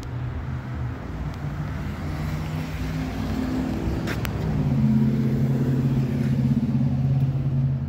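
A vehicle engine running steadily, louder and steadier from about four and a half seconds in, with one sharp click just before.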